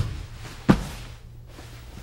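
Two dull thuds of people landing on a training mat, the second about two-thirds of a second after the first, over a steady low hum.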